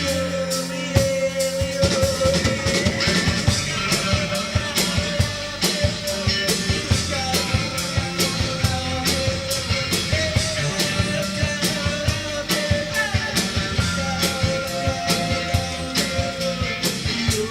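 Live rock band playing: a steady drum kit beat under held, bending guitar notes, with no words sung.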